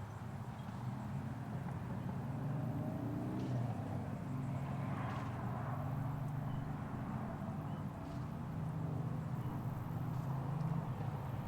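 A motor engine running steadily with a low hum, its pitch shifting slightly.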